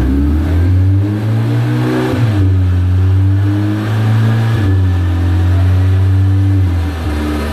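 2016 Audi S3's turbocharged 2.0 TFSI four-cylinder, fitted with a bigger turbo, pulling hard on a chassis dyno, heard inside the cabin. The engine climbs in pitch and drops back twice as the DSG dual-clutch gearbox shifts up, then eases off near the end.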